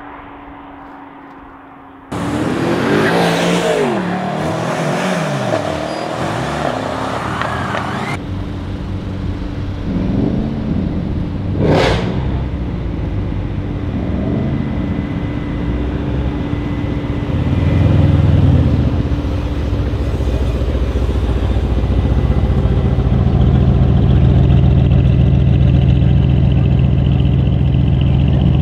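A performance car revving hard and accelerating through gear changes, its engine note climbing and dropping, then cut off abruptly. After that a sharp crack, then the Mercedes-AMG C63 estate's twin-turbo V8 at low revs, a deep steady rumble that swells as it pulls away.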